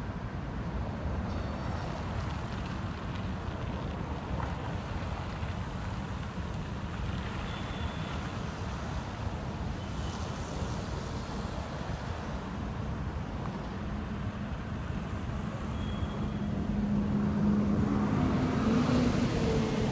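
Road traffic moving through a roundabout: cars and vans passing with a steady rumble of engines and tyres. Near the end a city bus drives past close by, its engine hum growing louder for a few seconds.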